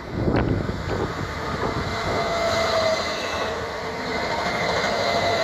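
Royal Mail Class 325 electric multiple unit running past: a steady rumble of wheels on the rails that swells sharply at the start, with a thin, steady high-pitched whine held over it.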